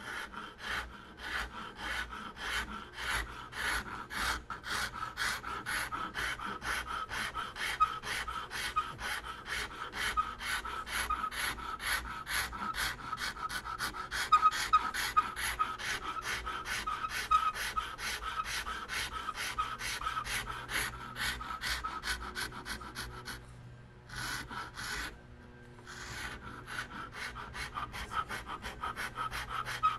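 Flat hand file rasping across the edge of a wooden grip blank held in a vise, in regular strokes at about three a second, with a short pause about three quarters of the way through. The file is taking the wood down to an inletting-compound mark so the grip seats against the revolver frame.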